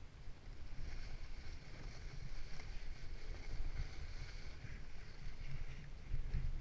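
Wind buffeting the camera microphone in an uneven low rumble, over the hiss and scrape of a snowboard sliding across ungroomed snow.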